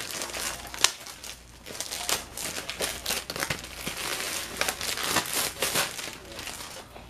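Clear plastic wrapping crinkling and rustling as it is handled, with scattered sharp clicks.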